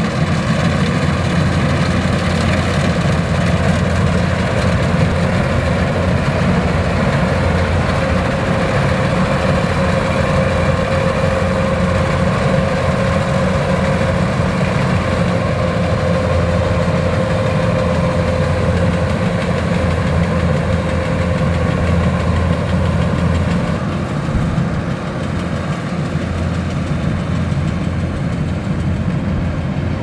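Kubota DC-105X combine harvester's diesel engine running steadily while the machine cuts rice, a low, even hum with a thin steady whine over it for a stretch in the middle. The sound drops slightly in level about three quarters of the way through as the machine moves away.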